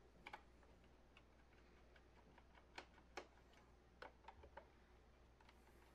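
Faint, sharp clicks and ticks, irregularly spaced, of a screwdriver working the screws that hold the cleaning head module in the plastic underside of a Roomba s9 robot vacuum.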